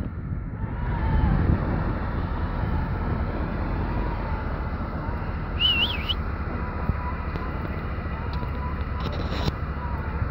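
A 1987 Honda Civic Wagovan running slowly along a snowy dirt road, with steady engine and tyre noise. A brief high squeak comes about six seconds in.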